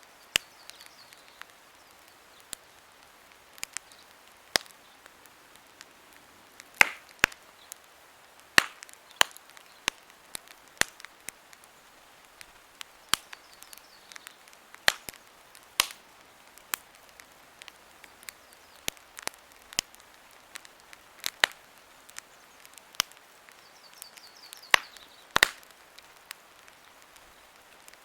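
Campfire crackling: burning wood giving irregular sharp pops and snaps, a few each second, over a faint steady hiss, with a quick cluster of louder snaps near the end.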